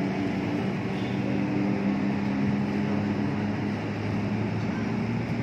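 A steady low engine hum with background noise.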